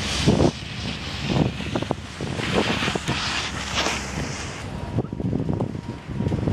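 Gusty wind buffeting the microphone of a camera riding an open chairlift, in irregular rumbling gusts with hissy peaks. A faint steady whine comes in about five seconds in.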